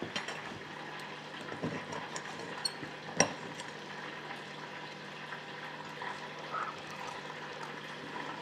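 Alligator pieces deep-frying in a shallow pot of oil, a steady sizzle, with a few clinks and scrapes of a knife and fork on a plate, the sharpest about three seconds in.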